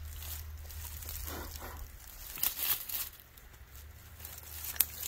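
Faint rustling and light scraping from someone handling things close by, with a sharp tick near the end.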